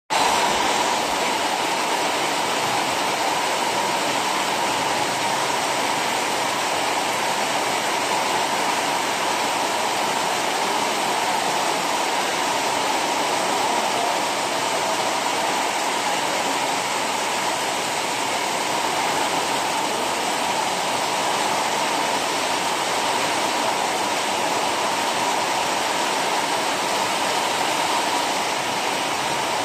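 Torrential rain pouring down on a street: a steady, unbroken rush of heavy rainfall.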